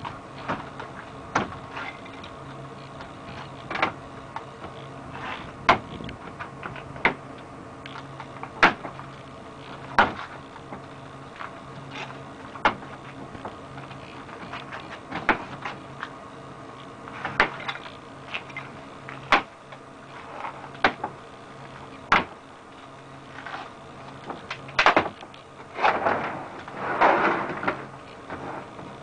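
Irregular sharp clicks and knocks of plastic frame parts being fitted by hand on a corrugated-plastic housing, with a longer rubbing scrape about 26 seconds in. A steady low hum runs underneath.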